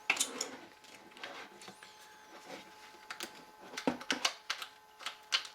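Sharp metal clicks and clacks of a Ruger 10/22 rimfire rifle being handled as it is cleared, its magazine and bolt being worked. One loud click comes at the very start, then scattered clicks, and a quicker run of them in the last couple of seconds.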